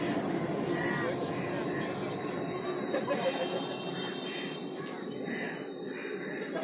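Street traffic running by, with the hiss of a passing vehicle fading away in the first second or so. A woman's voice talking comes through at times.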